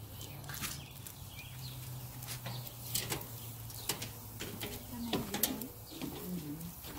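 Scattered light clicks and clinks of tableware during a meal, over a steady low hum. A few low curving tones come in near the end.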